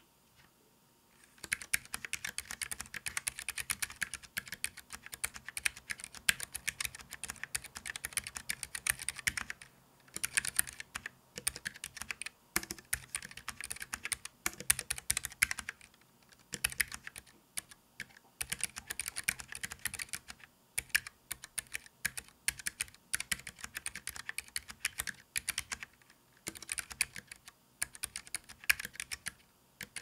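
Typing on a Keychron K3 low-profile mechanical keyboard with low-profile optical white switches, set on a bare desk. Runs of rapid keystrokes start about a second and a half in and go on in stretches of several seconds, broken by short pauses.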